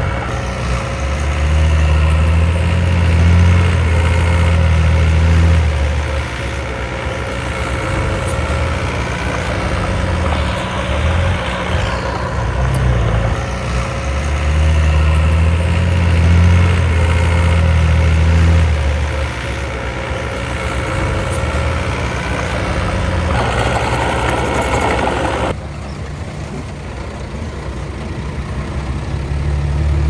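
Diesel engine of an earthmoving machine running and working, its note growing louder for a few seconds twice. A short rushing noise comes about three-quarters of the way through, then the engine settles lower.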